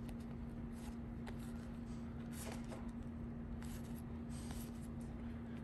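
Baseball trading cards being slid and flipped against one another by hand, soft papery brushes about every second, over a steady low hum.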